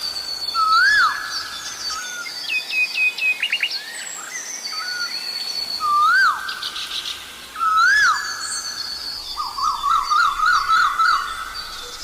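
Asian koel calling a loud whistle that swoops up and then down, heard three times (about a second in, then twice close together around six and eight seconds), with a lingering echo after each call. Smaller birds chirp and trill higher above it, and near the end comes a quick run of rising and falling notes.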